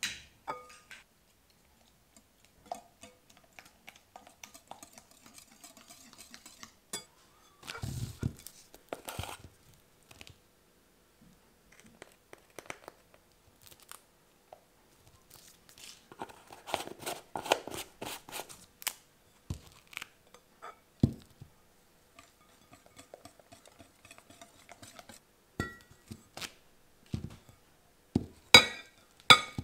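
Baking prep noises: a wire whisk clicking and scraping against a glass mixing bowl, with a dense run of quick whisk strokes midway, plus taps of containers being handled. Near the end, a few sharp ringing clinks as a glass measuring jug is set down and handled.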